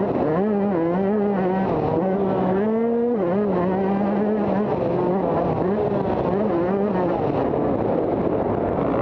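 Motocross bike engine racing on the track, heard from onboard, its pitch rising and dipping with the throttle. Near the end the engine note drops back under a rush of noise.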